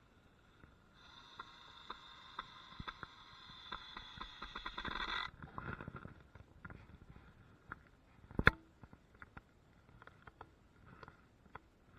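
Work on a wooden frame: a steady whine for about four seconds that grows louder and cuts off suddenly, then scattered clicks and light knocks, with one loud knock about eight and a half seconds in.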